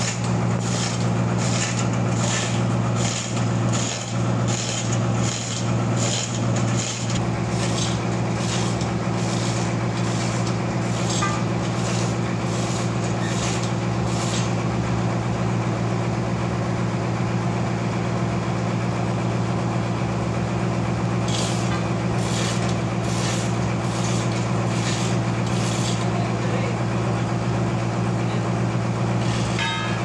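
Sawmill machinery running with a steady hum while no cutting is done. Sharp clicks come about twice a second over roughly the first half, stop, then return briefly later on.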